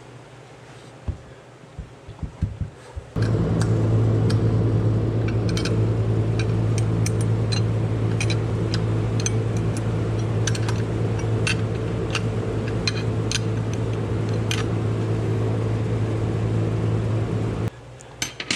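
A few knocks, then an electric motor-driven machine switches on about three seconds in. It runs with a steady hum and scattered clicks for about fifteen seconds and cuts off abruptly shortly before the end.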